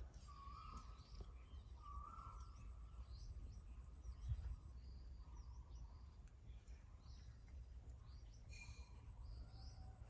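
Faint outdoor ambience. An insect trills steadily at a high pitch, drops out about halfway through and starts again near the end. Scattered bird chirps and a low rumble run underneath, with a single soft thump a little after 4 seconds.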